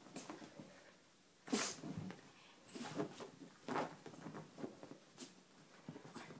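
A Bichon Frise making short breathy nose sounds right at the microphone: four or five quick bursts, the loudest about a second and a half in.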